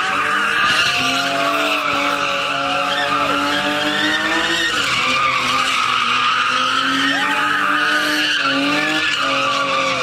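Car doing donuts: engine held at high revs with its pitch wavering, over a continuous tyre screech. The engine note dips briefly about halfway through and again near the end.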